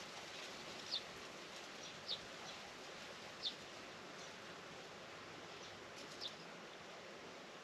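A small bird calling: four short, high chirps, each sliding down in pitch, spaced a second or more apart, over a steady faint outdoor hiss.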